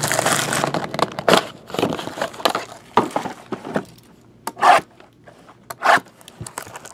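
Cardboard boxes of trading cards being handled: small card boxes pulled from their display box and slid and set down on a table, with rubbing and scraping of cardboard, and two louder brief scrapes about five and six seconds in.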